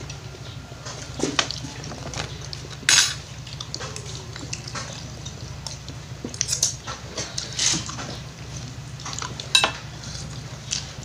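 Metal spoons and forks clinking and scraping as people eat, several separate clinks with the loudest about three seconds in, over a steady low hum.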